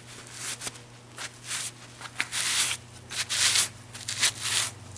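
Rag rubbing over the top of an engine piston in its cylinder, a run of short scrubbing strokes at about two a second.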